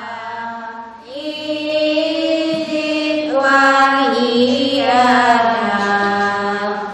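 Melodic vocal chanting in long held notes that slide from pitch to pitch. It grows louder about a second in.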